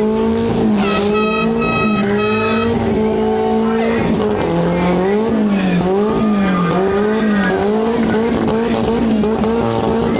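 Demolition derby car engines running and revving, their pitch rising and falling, with three short high-pitched horn blasts about a second in.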